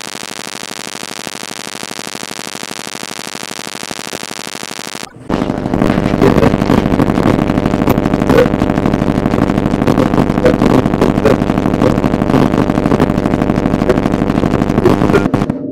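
A harsh, rapid electronic pulsing buzz made of many steady tones. It jumps abruptly to a much louder, denser buzz about five seconds in.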